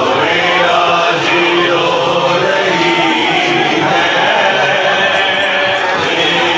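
A crowd of men chanting together in mourning: a loud, unbroken mass of many overlapping voices.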